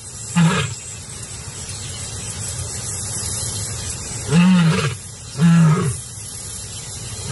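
Lion snarling: a short call about half a second in, then two loud snarls of about half a second each, one right after the other, a little past the middle.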